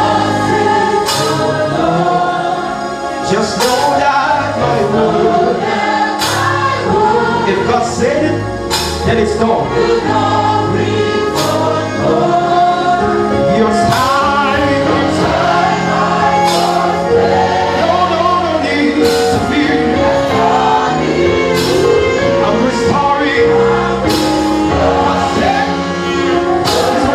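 Live gospel song: a man sings lead into a microphone with a choir singing along, over instrumental accompaniment with held bass notes and scattered percussion hits.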